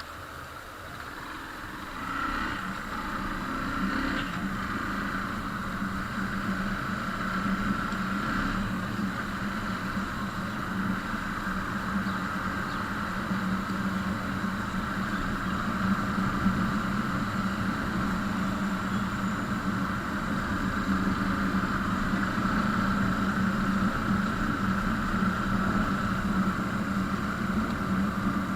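A vehicle engine running steadily at a constant speed, growing louder about two seconds in and then holding level.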